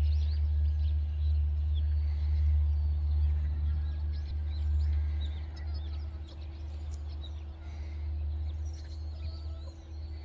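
Small birds chirping, many short high calls scattered throughout, over a steady low rumble that is the loudest sound.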